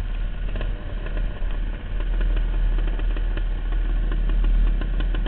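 Dirt bike engine running at low trail speed, a steady deep drone with faint rattles and clicks over it.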